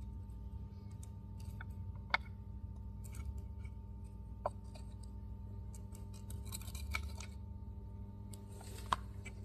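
Faint clicks and a light hiss from a soldering iron tip worked against a stranded copper wire on a circuit board's solder pads, wicking molten solder out of the through-holes. A steady low hum lies under it.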